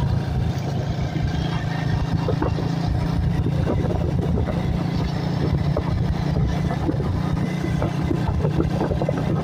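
Steady engine drone and road noise of a moving car, heard from inside the cabin.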